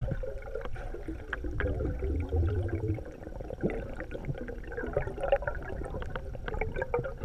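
River current heard underwater, a muffled gurgling rush with many small scattered clicks. A heavy low rumble sounds through the first three seconds and then fades.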